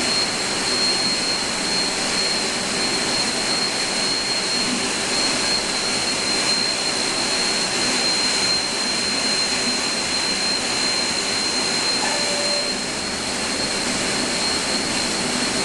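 KBH CK 600 machine running steadily, driven by a large electric motor through V-belts: an even whirring noise with a constant high-pitched whine.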